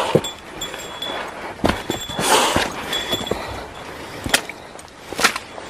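Hiking boots stepping on a rocky, muddy forest trail: irregular scuffs and knocks on stones and leaf litter, with a burst of rustling about two seconds in.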